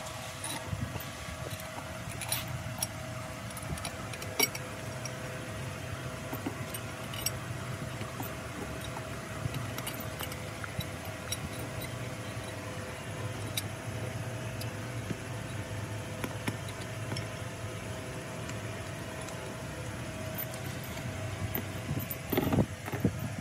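A steady machine hum with scattered light metallic clicks and clinks.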